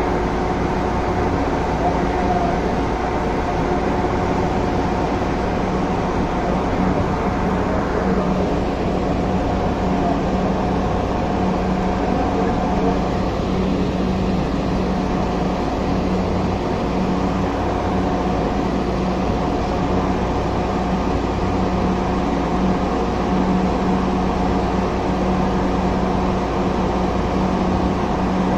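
Light rail train running at a steady speed, heard from inside the driver's cab: an even rumbling run with a steady hum of several constant tones.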